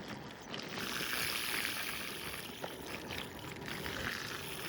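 Steady rushing wash of flowing floodwater.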